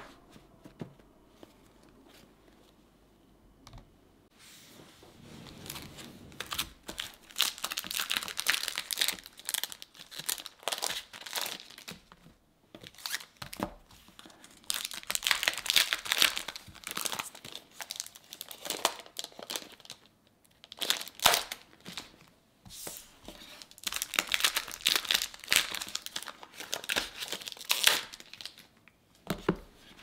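Packs of paper sticker sheets being handled, their paper and wrapping crinkling and rustling in runs of several seconds with short pauses; the first few seconds are quiet.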